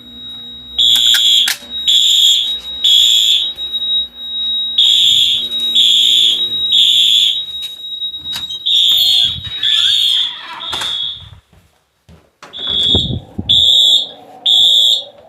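Wheelock AS horn-strobes sounding a loud, high electronic horn tone in the temporal-three fire evacuation pattern: three short blasts, a pause, then repeated. A thin steady high tone runs under the blasts for the first half, and the sound drops out briefly about two-thirds of the way in.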